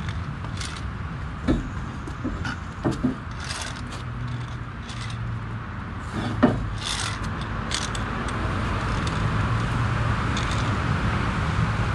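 Scraping and a handful of sharp knocks as a truck-trailer wheel and a long steel tyre-change bar are handled, the loudest knock a little past the middle. Steady road traffic runs underneath and grows louder near the end.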